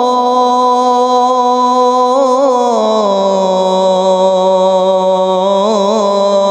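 A man's solo voice calling the adhan (Islamic call to prayer), drawing out the opening 'Allahu akbar' in one long, ornamented melodic line. The held note steps down in pitch about three seconds in, with quick trills on the note near the end.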